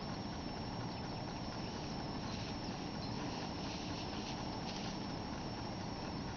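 Steady outdoor background noise: an even rushing hiss with low rumbling and a faint high steady tone, with no distinct events.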